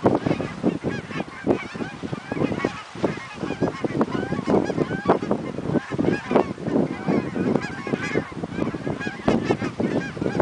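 A large flock of geese flying over, many birds honking at once in a continuous, overlapping chorus.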